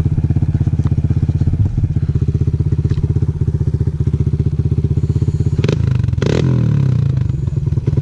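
Two-stroke Yamaha YZ250X dirt bike engine, close up, running at low revs with a steady fast pulsing. About two-thirds in come two sharp knocks, and the engine revs up.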